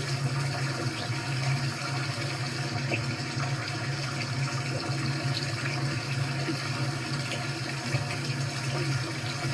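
Recorded running water from a video playing on a computer: a steady, even rush of water noise with a low hum underneath.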